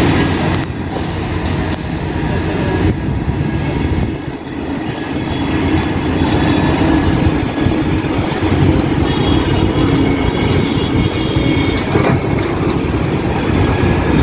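Hydraulic excavator's diesel engine running steadily under load as it digs and swings its arm, with a few faint knocks.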